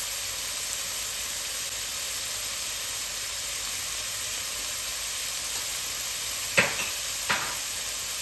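Diced onion, carrot and celery sizzling steadily in a heavy pot, with two sharp knocks a little under a second apart near the end.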